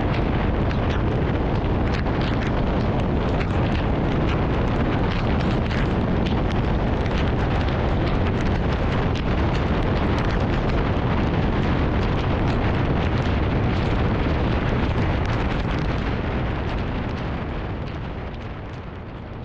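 Heavy, steady wind rumble buffeting the microphone while the scooter is ridden at speed, easing off near the end.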